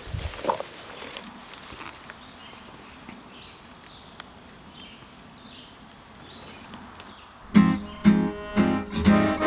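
Leaves and brush rustling with a few light snaps, and faint bird chirps in the middle. About three-quarters of the way in, acoustic guitar music in a swing rhythm starts abruptly and becomes the loudest sound.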